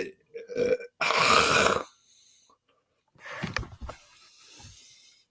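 A man belching: a short burp about half a second in, then a louder, rougher burp lasting nearly a second. Faint knocks and rustling follow near the end.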